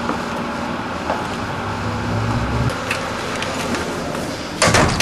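A door pushed shut with a loud bang near the end, over steady background rumble.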